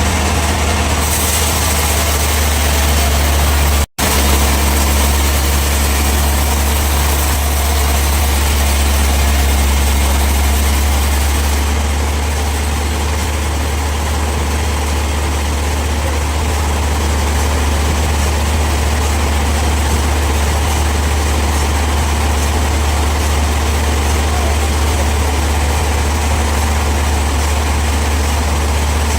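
Band sawmill running steadily: a loud, low engine hum under a steady higher noise. The sound drops out for an instant about four seconds in.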